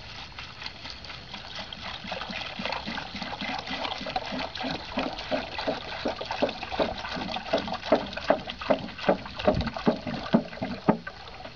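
Water poured from a plastic gallon jug into a rip-stop nylon dry sack. The pour runs steadily, then glugs in regular gulps of about three a second that grow louder in the second half, and stops shortly before the end.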